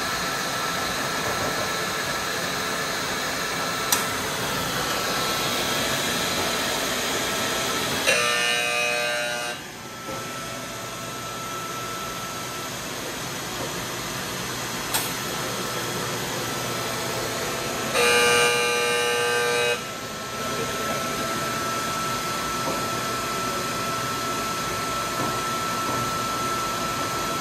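AC Horn Bauer 322 nut roaster running with a steady rush of machinery noise and a faint steady whine. A horn sounds twice, each blast about two seconds long.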